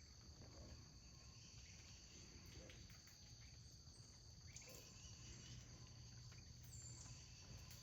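Faint, steady, high-pitched chorus of insects trilling in the background.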